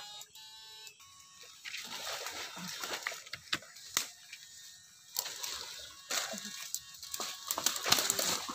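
Shallow stream water splashing and sloshing as it is churned by a wader and an electrofishing probe, with sharp clicks scattered through and the loudest splashing near the end. A few steady buzzing tones sound in the first second.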